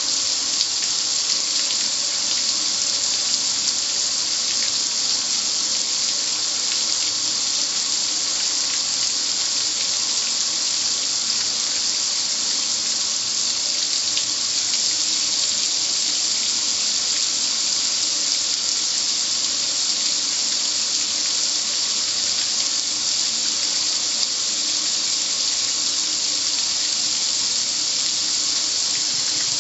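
Car wash water spray hissing steadily, an even high hiss with no break.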